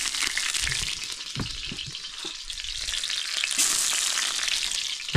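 Garlic and onion sizzling in hot oil in a karahi, a steady hiss that swells about three and a half seconds in, with a few soft knocks as the pot is stirred.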